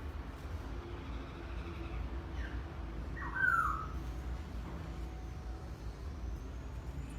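A cat mews once, short and high, a little over three seconds in, over a steady low hum.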